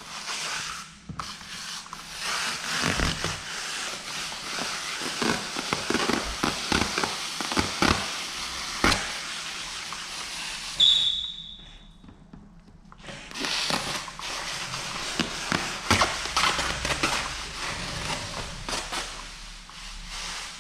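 XPEL Ultimate Plus paint protection film crackling and crinkling in dense irregular clicks as it is handled and stretched over a car bumper. A brief high squeak about eleven seconds in, a short lull, then the crackling resumes.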